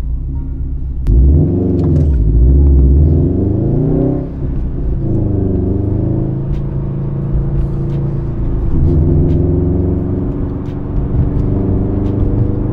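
A 2020 Subaru WRX STI's turbocharged flat-four with an AWE Touring cat-back exhaust, heard from inside the cabin while the car accelerates. The engine note climbs in pitch from about a second in, drops at a gear change around four seconds, climbs again, then holds steady at a cruise from about nine seconds.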